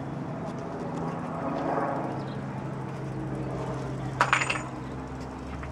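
Distant helicopter running with a steady low drone as it flies away, with one short sharp clack about four seconds in.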